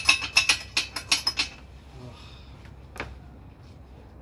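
Steel parts of a hydraulic press frame clinking and rattling as they are handled and fitted: a quick run of about ten sharp metallic clinks in the first second and a half, then a single click about three seconds in.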